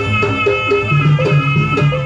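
Javanese gamelan music accompanying a jaranan dance: drums beating under a quick run of short struck pitched notes, with a long held high tone above.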